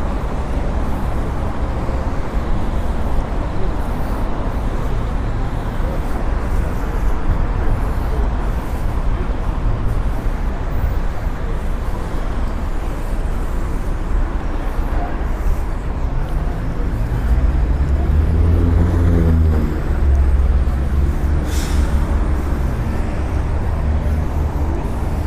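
Continuous city street traffic rumble. About two-thirds of the way in, a heavy vehicle's engine rises in pitch as it pulls away, followed a couple of seconds later by a short sharp hiss.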